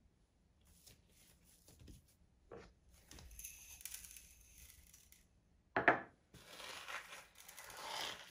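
Pearl sugar poured from a small bowl onto bread dough with a hissing patter of grains, then a sharp knock. After that, hands knead the sugar into the dough with a gritty rubbing and crunching against the worktop.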